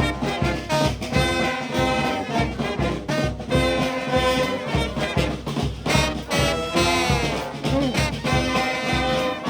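Live brass band playing an upbeat swing-style tune, with horns such as trombones and trumpets carrying the melody over a steady beat.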